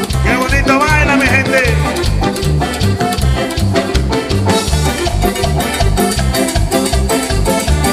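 A live band's Latin dance music, played loud through a PA: an instrumental passage with a steady, even bass-and-drum beat under guitars and keyboard, and a wavering high melody near the start.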